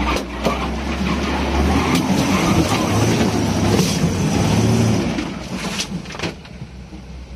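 Off-road motorcycle engine revving and labouring in mud, its pitch rising and falling, with several sharp knocks. It dies away after about five seconds.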